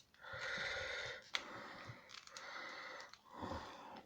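A person's breathy, unvoiced vocal sounds: three long hissy exhales or whispers, each about a second long.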